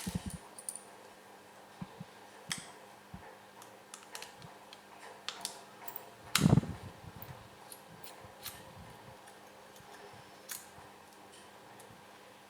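Small scattered clicks and taps of hands and a tool working on the open laptop's internal parts, with one louder knock about six and a half seconds in.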